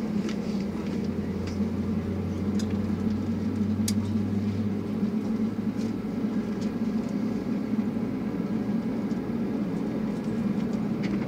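Steady low drone inside an Airbus A320 cabin on the ground, from the engines and air-conditioning, with a lower hum that fades out about five seconds in and a few faint clicks.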